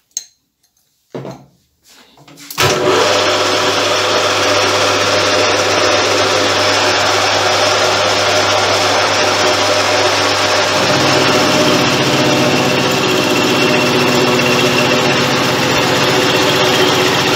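Hobby lathe starting up about two and a half seconds in and running steadily, its spindle turning a 20 mm end mill that mills across a thick metal plate clamped in a vice on a vertical slide. The tone shifts about two-thirds of the way through, and the cut runs without chatter.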